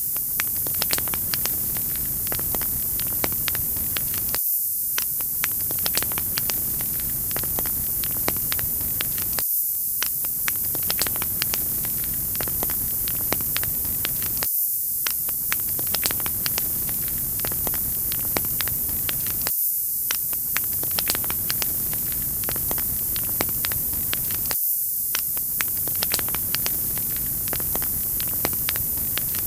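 Wood fire crackling: a steady hiss with frequent small sharp pops and snaps. The low rumble briefly drops away about every five seconds.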